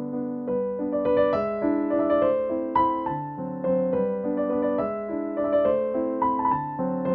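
Background piano music: a melody of sustained notes changing about twice a second.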